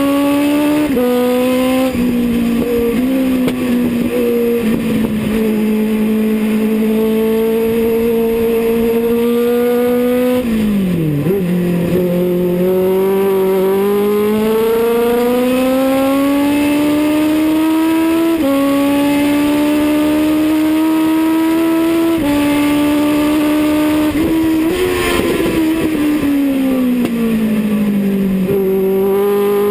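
A Legends race car's Yamaha motorcycle-derived four-cylinder engine under race throttle, heard loud from inside the cockpit. Its pitch climbs and falls as the driver works through the track, jumping abruptly several times, with a sharp dip about eleven seconds in.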